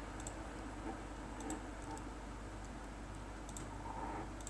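A few faint computer mouse clicks, spaced a second or more apart, over a low steady hum.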